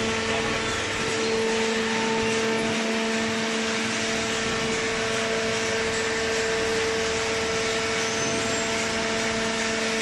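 Hydraulic paper baler running: a steady machine hum with a constant low drone over a rushing hiss, typical of the baler's hydraulic pump and motor.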